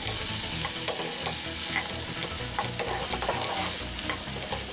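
Masala-marinated chicken pieces sizzling in oil in a nonstick frying pan, stirred with a wooden spatula that scrapes and clicks against the pan now and then. The chicken is frying in the extra oil released from the meat after being covered.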